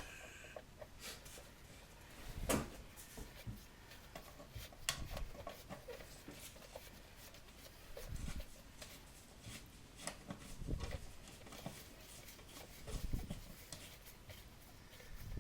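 Hand tools clicking and knocking against an old garbage disposal's mounting hardware as its screws are worked out, with a sharper knock about two and a half seconds in and a few dull thumps later on.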